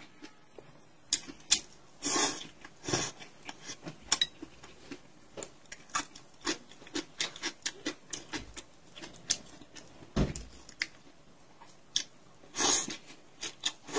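Close-up eating sounds: noodles slurped twice, about two seconds in and again near the end, with moist chewing and small mouth clicks in between.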